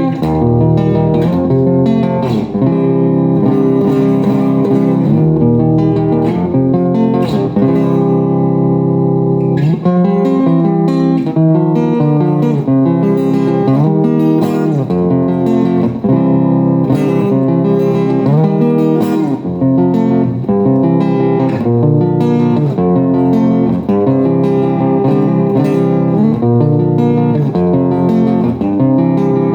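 Guitar music: plucked and strummed guitar playing over a steady bass line.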